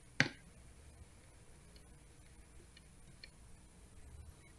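A computer mouse click sounds sharply just after the start. A few faint, scattered ticks follow over a low steady hum.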